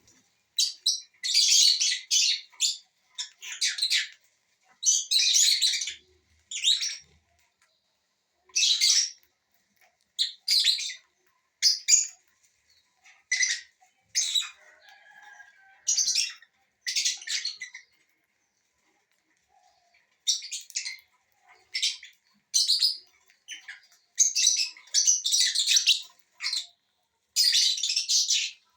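Aviary parrots (lovebirds, cockatiels and Indian ringneck parakeets) chirping and squawking in short, high-pitched bursts that come again and again, with a brief lull around the middle.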